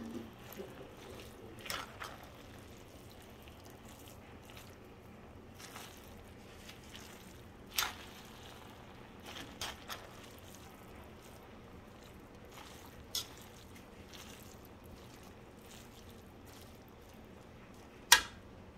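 Noodles being tossed in a metal wok: soft wet squishing of the noodles, with scattered sharp clicks of a cooking utensil striking the pan, the loudest about 8 s in and again near the end.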